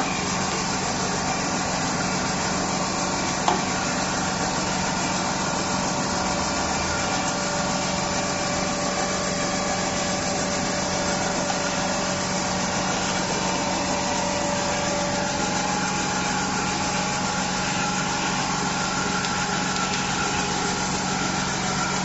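Steady machine hum with an even hiss and a few faint steady tones, broken by a single click about three and a half seconds in.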